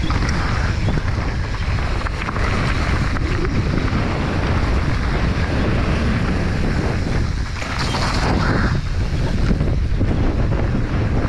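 Mountain bike descending a dirt trail at speed: wind rushing over the microphone and the tyres rolling over the ground, with small knocks and rattles.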